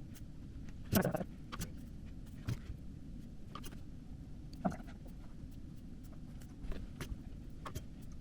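Scattered light clicks and taps, about half a dozen, the loudest about a second in, from tack-soldering stained glass: the soldering iron and solder touching down on the copper-foiled glass pieces. A steady low hum runs underneath.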